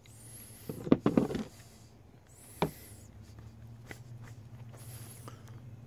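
Hard plastic knocks and clatter as a Ryobi 18V battery pack's circuit board, in its plastic frame, is handled and set down on a wooden table. There is a short burst of knocks about a second in and a single knock a little later.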